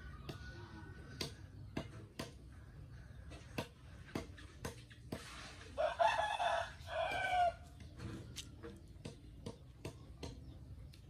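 A rooster crowing once, about six seconds in, over scattered light clicks and taps.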